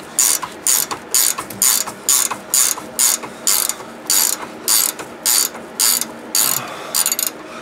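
Ratcheting box-end wrench clicking as it is swung back and forth to run a nut off the steering linkage, about two ratchet strokes a second, stopping shortly before the end.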